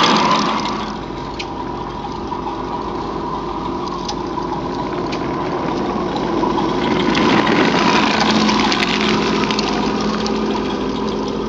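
Remote-control model military vehicles running over grass: a steady mechanical hum with a whine of motors and gears, easing about a second in and building again as a vehicle draws closer.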